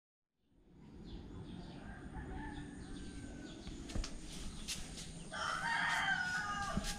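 After a brief silence, chickens can be heard over faint outdoor background noise. A rooster crows once, starting a little past five seconds in.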